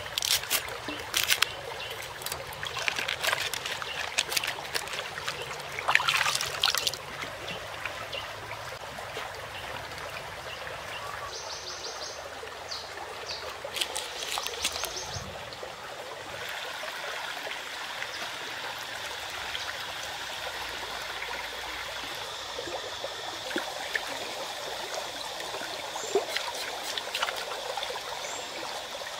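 A shallow stream trickling and flowing. Over the first several seconds there are sharp splashes and knocks of hands and a knife working bok choy in the water, and a few more scattered ones later.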